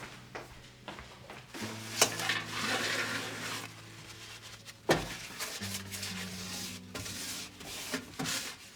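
Soft background music with held low notes, over household handling sounds: a few sharp knocks, the loudest about 2 s and 5 s in, and a stretch of rubbing or scraping between them.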